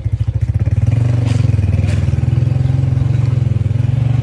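An engine running steadily with a low, even throb, and a couple of faint clicks about a second and two seconds in.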